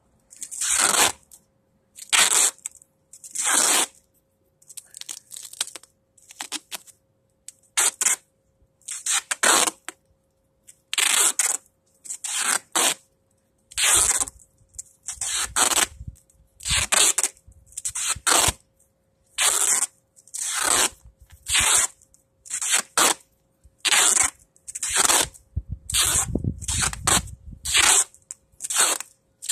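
Duct tape being pulled off the roll in short, loud rips, one about every second, over and over as it is wound on.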